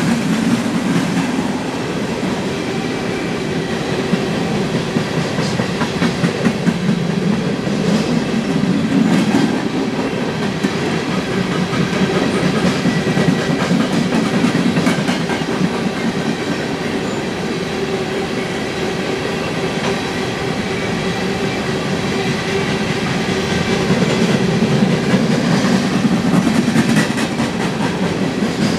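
Empty coal hopper cars of a freight train rolling steadily past: a continuous rumble of steel wheels on rail, with scattered clicks as the wheels pass over the track.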